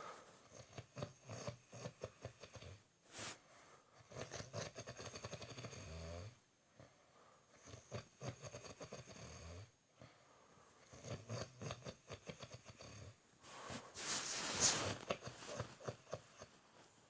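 A person snoring in deep sleep: a series of rattling snores a couple of seconds long with short pauses between them, and a louder, hissing breath near the end.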